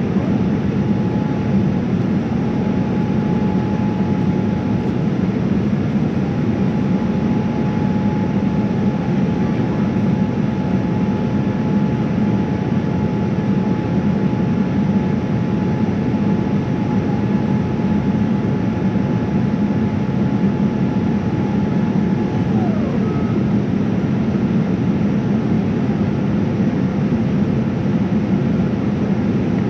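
Boeing 787-9 cabin noise: the steady roar of the engines and airflow heard inside the cabin. A thin high tone runs over it and slides down in pitch about three quarters of the way through.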